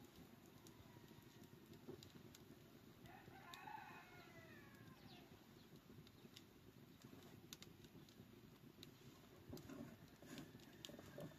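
A rooster crowing once, faint, about three seconds in, over a low steady background rumble with scattered light clicks.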